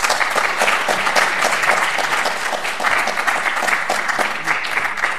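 Audience applauding, a dense steady patter of many hands clapping.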